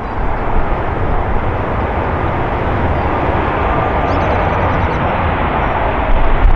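Boeing 737 MAX 8's CFM LEAP-1B jet engines in reverse thrust on the landing roll: a steady, dense jet roar that slowly grows louder as the airliner rolls toward the listener.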